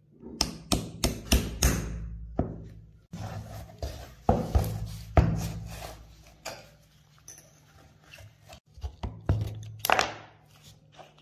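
Steel pin punch being struck against a pin in the frame of a rusty Tokarev TT-33 pistol: a quick run of sharp metallic knocks in the first two seconds. More knocks and metal-on-wood handling sounds follow, with one louder knock near the end.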